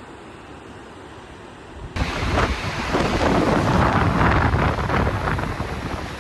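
Wind buffeting the microphone: a loud, gusty rumble that starts abruptly about two seconds in, after a quieter stretch of outdoor air noise.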